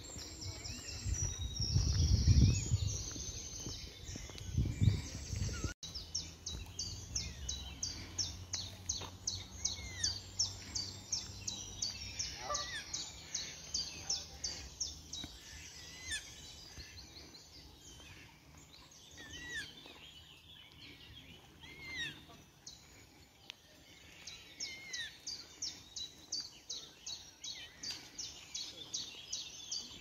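Small birds chirping and singing, many overlapping, with rapid high chirps repeating several times a second from about six seconds in. A low rumble on the microphone, the loudest sound, runs through the first few seconds.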